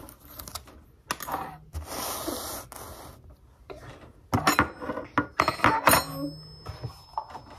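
A metal table knife scraping, then clinking and clattering several times against a plate and the countertop, the last clink ringing briefly.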